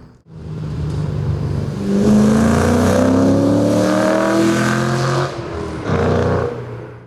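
2005 Mustang GT's 4.6-litre V8 through Borla Stinger axle-back mufflers and a Pypes off-road X-pipe, accelerating with its note climbing steadily in pitch. Near the end it drops off briefly, picks up again, then cuts off suddenly.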